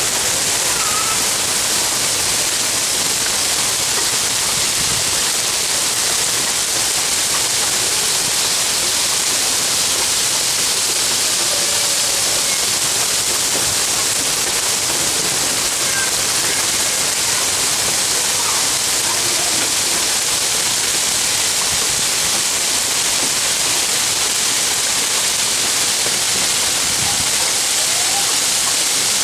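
Hailstones and rain coming down hard, a dense, steady hiss that holds at the same level throughout.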